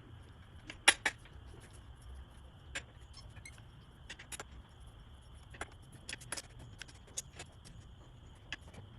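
Scattered light metallic clicks and clinks of hand tools on metal, the sharpest about a second in, over a low steady hum: the sounds of loosening and removing a dirt bike's handlebars.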